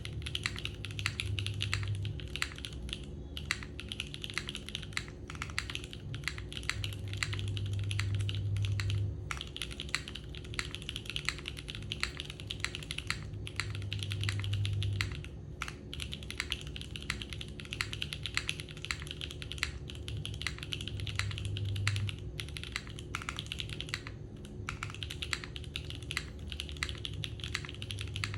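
Typing on a gasket-mounted Neo60 Core mechanical keyboard with Gateron Summertime V1 switches and GMK Rubrehose keycaps: fast, continuous keystroke clacks with a few short pauses.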